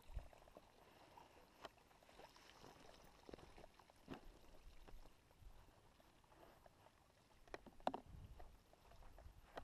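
Near silence with a few soft knocks and rustles from a backpack being handled on a wooden bench. The clearest knocks come about a second and a half in, around four seconds, and a small cluster near the end.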